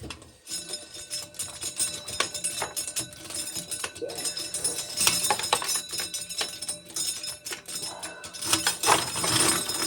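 Corn sheller stripping kernels from ears of corn: a continuous dense rattle and clatter of dry kernels.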